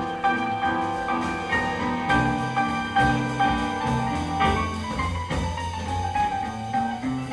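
Grand piano playing a jazz solo, with bass and drums keeping time underneath.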